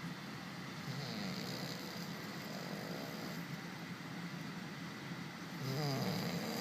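A man snoring in his sleep: two long, rough snores, one starting about a second in and a louder one near the end.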